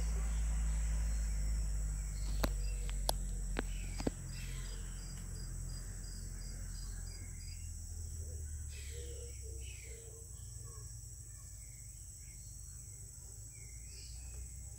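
Steady high-pitched drone of insects in the forest. A low rumble fades out after about four seconds, a few sharp clicks fall near the start, and short bird chirps come and go midway.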